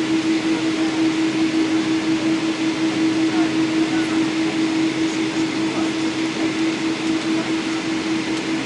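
Steady cabin drone of a Boeing 777-200ER airliner on the ground just before takeoff: a constant hum with one strong steady tone under an even rush of noise.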